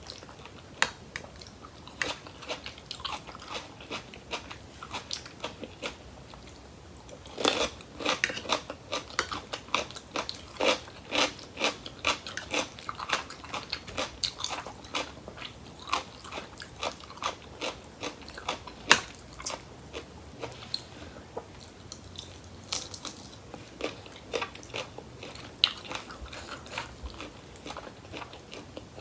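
Close-up chewing and crunching of crisp raw vegetables eaten with a spicy rice-noodle salad: scattered crunches at first, then a fast run of crisp bites and chews from about seven seconds in, thinning out in the last third.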